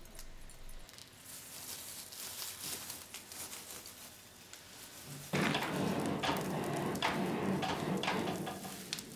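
Charcoal forge fire crackling and hissing around a clay-coated block of tamahagane steel. A little over five seconds in, it abruptly turns louder and fuller, with sharp crackles as the flames flare and throw sparks.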